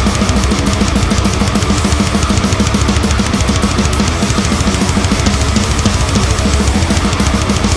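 Instrumental thrash-metal rock cover of a college fight song: distorted electric guitar, bass and a drum kit playing fast, driving beats.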